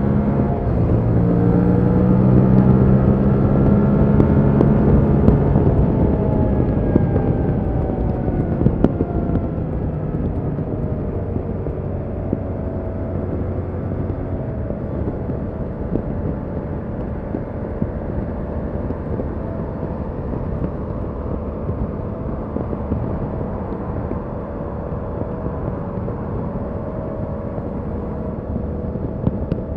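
Stock Yamaha MT-07's 689 cc parallel-twin engine pulling hard with its pitch rising for about five seconds, then easing off with falling pitch, and settling into steady cruising under a haze of wind and road noise.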